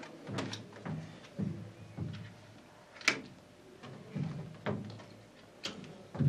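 Irregular soft knocks and bumps as cardboard cut-outs are handled and pressed onto a board, with one sharper click about three seconds in.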